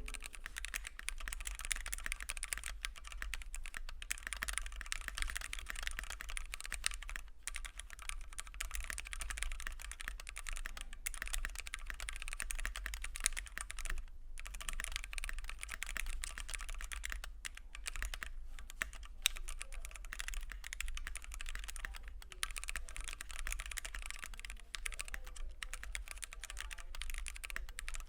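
Fast continuous typing on a Keychron Q1 mechanical keyboard with a polycarbonate plate, Gateron Phantom Red linear switches and double-shot ABS keycaps, with a few brief pauses. The sound is soft and thocky, but the case still gives it a hollow, pingy ring.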